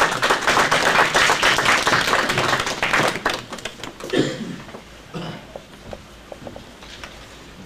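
Audience applauding, a dense patter of many hands for about three seconds that then thins out and fades.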